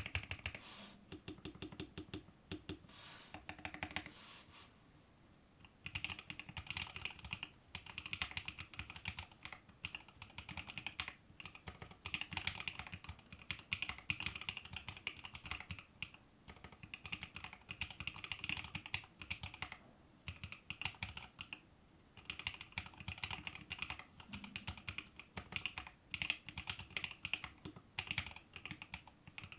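Typing on a Fuji65 mechanical keyboard with lubed Alpaca v2 linear switches, a carbon fiber plate and BOW keycaps: rapid runs of keystrokes with brief pauses between bursts.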